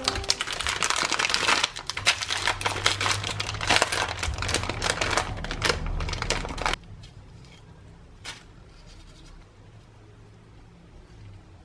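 Crinkling of plastic packaging as Oreo cookie wrappers are torn open and handled, dense and loud, stopping abruptly about seven seconds in. After that only a few faint clicks are heard.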